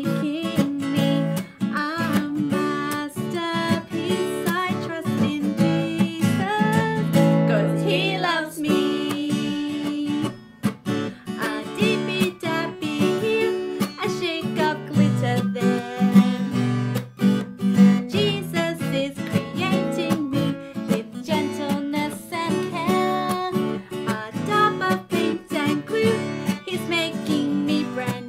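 Acoustic guitar strummed in a steady rhythm, with a woman singing a children's song over it.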